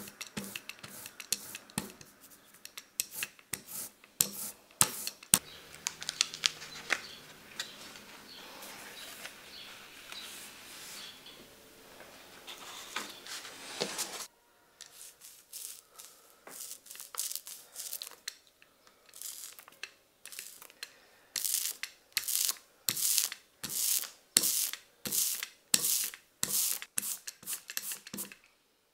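Close-up scraping and rubbing of hand tools working a soft rubber printing block: scattered clicks and short strokes at first, then, after an abrupt break about halfway, a regular run of strokes about two a second.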